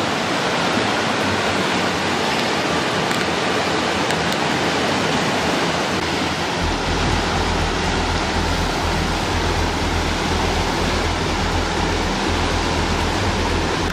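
Steady rush of a fast mountain creek running high. About halfway through, a deep steady rumble joins underneath.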